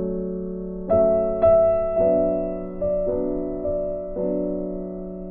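Background piano music: a slow melody of separate notes, each struck and left to ring.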